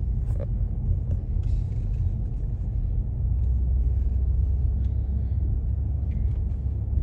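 Car interior road noise while driving: a steady low rumble of tyres and engine that swells for a few seconds midway, with a few small knocks and rattles.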